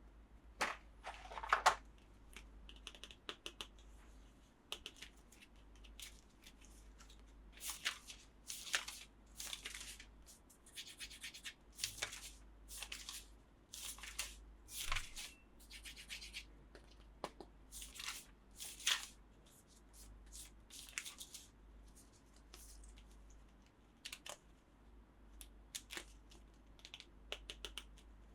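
Toy packaging being opened and handled: a long string of short tearing, scratching and rustling noises, some sharper and louder than others.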